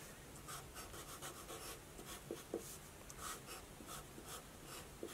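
Faint felt-tip marker strokes on paper: a series of short scratchy strokes as lines are drawn, with a couple of small clicks about halfway through.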